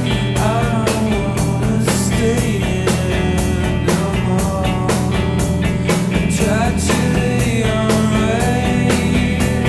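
Rock music with drums, guitar and a wavering singing voice or lead guitar line.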